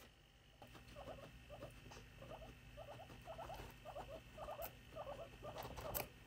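Guinea pig chewing fresh coriander: quick, regular crunches, two or three a second, starting about half a second in.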